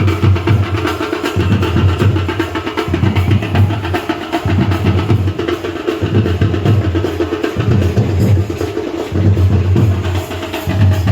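Music led by fast, loud drumming, with a heavy bass beat pulsing in short sections.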